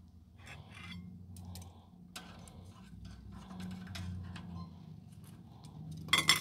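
Metal tongs clicking and scraping against a kettle grill's wire grate as a steak is turned, with two sharp, loud metallic clanks near the end.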